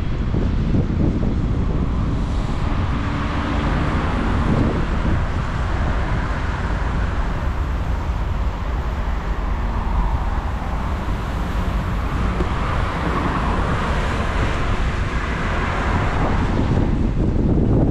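Wind rushing over the microphone on a moving ride, over a steady low rumble of road traffic; a broad hiss swells through the middle and fades near the end.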